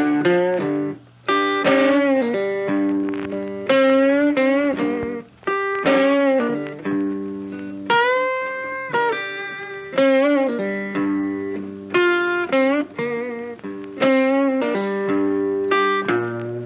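Guitar music: a melody of plucked notes, some bent or wavering, with a long held note about eight seconds in.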